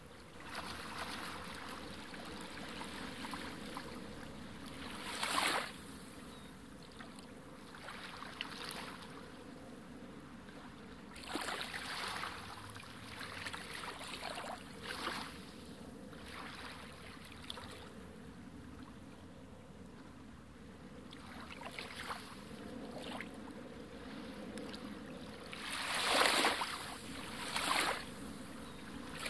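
Waves lapping against the pier in a steady wash of water, with several short louder splashes, the biggest near the end.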